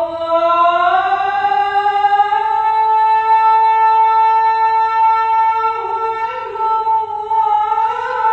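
A muezzin's voice chanting the adhan, the Islamic call to prayer. It starts suddenly on a note that slides upward and is then held for several seconds, with wavering, ornamented turns in the last few seconds.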